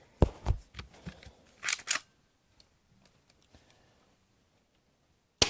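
Spring-powered Sig P226 airsoft pistol with a metal slide: sharp mechanical clicks and a short rasping slide sound in the first two seconds as it is handled and cocked, then a single sharp shot near the end.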